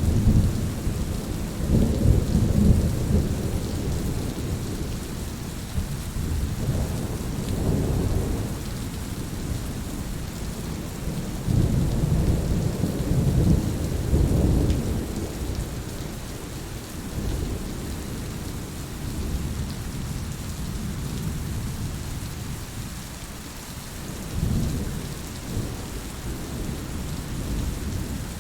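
Steady rain falling in a forest, with low rolling rumbles of thunder swelling several times: at the start, around eight seconds, a longer roll from about twelve to fifteen seconds, and again about twenty-five seconds in.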